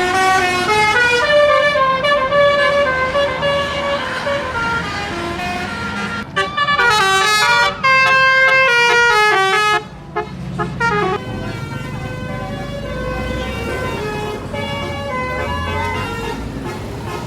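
Indonesian bus 'telolet' horns playing multi-note tunes, the tones stepping up and down in pitch. A louder, brighter run of horn notes comes about six seconds in and stops sharply near ten seconds; softer horn tunes then continue over a low rumble.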